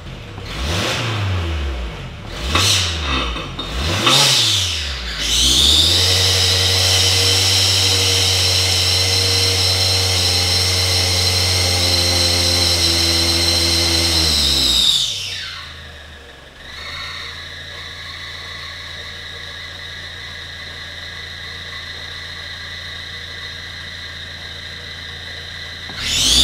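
Skoda Fabia engine revved in three quick blips, then held at high revs for about ten seconds with a high whistle over it, before dropping back to idle, where a fainter whistle carries on. The mechanic puts the whistle and power loss down to a catalytic converter whose loose innards are clogging the exhaust.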